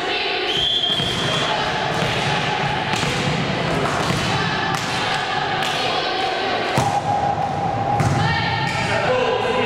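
Volleyball being played: repeated sharp thuds of the ball struck by hands and hitting the floor during a serve and rally, with players' voices. A short high referee's whistle sounds about half a second in.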